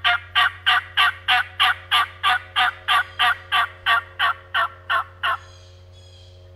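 A long, evenly paced series of turkey yelps, about three a second, that stops a little past five seconds in.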